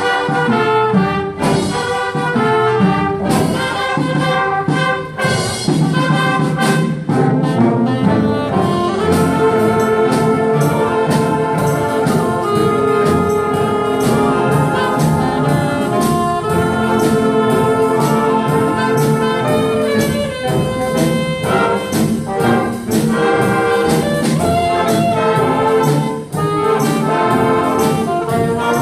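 A live wind orchestra playing, with brass and woodwinds sounding full, held chords over a steady beat of drum hits; the chords sustain longer through the middle of the passage.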